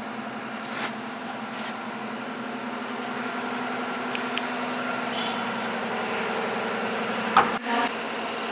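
Maruti Suzuki Alto 800's 800 cc three-cylinder petrol engine idling with a steady hum that grows slightly louder. A sharp knock comes near the end.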